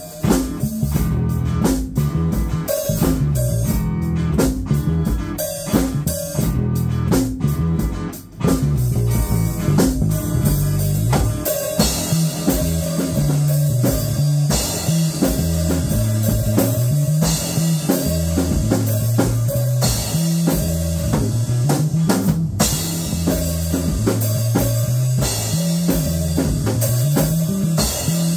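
Live funk jam on bass guitar and drum kit: a bass line moving over busy drums and cymbals. The drums hit densely at first, break off briefly about eight seconds in, then settle into a steady groove with washing cymbals.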